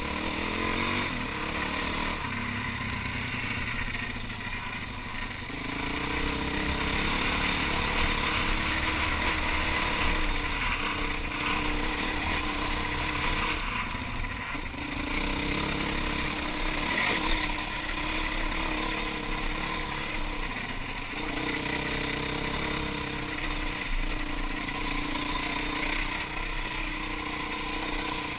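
Enduro motorcycle engine under way on a gravel track, heard from the rider's helmet camera. The engine note rises and falls in pitch several times with throttle and gear changes, over a steady rushing noise.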